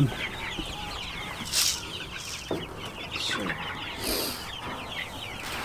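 Chickens clucking and chattering in a dense run of short, rapid calls, with a couple of brief rustles about a second and a half in and again about four seconds in.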